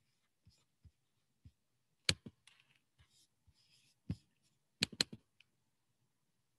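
Quiet clicking at a computer mouse and keyboard: a few soft taps, then several sharp clicks, two of them close together about five seconds in, with faint rustling between.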